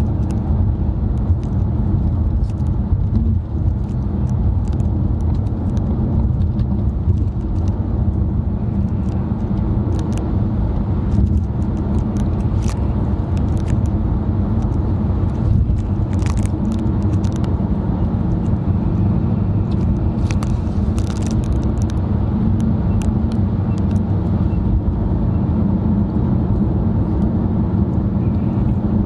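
Steady low road and engine rumble heard inside a moving car's cabin, with occasional faint clicks.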